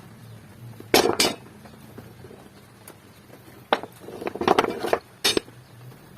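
Sharp knocks and clinks of hard objects: two close together about a second in, then a single knock, a quick cluster, and a last knock near the end.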